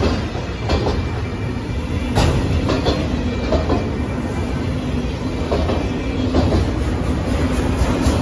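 Autorack freight cars rolling past close by: a steady low rumble, with wheels clicking over rail joints now and then.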